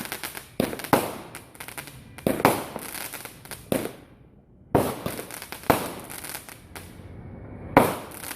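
Fireworks going off: sharp bangs roughly a second apart amid dense crackling, with a short lull about halfway through and a loud bang near the end.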